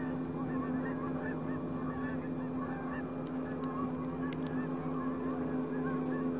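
A flock of Canada geese honking, many overlapping calls all through, over a steady low hum.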